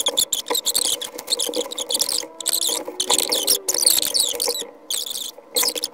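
Paper rustling as the pages of a large art book are handled and turned, a run of irregular crisp swishes and scrapes with brief pauses.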